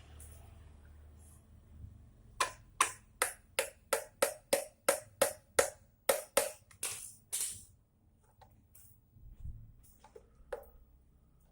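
A quick, even run of about a dozen sharp clicks, roughly three a second, each with a brief ring, followed by a few fainter scattered clicks.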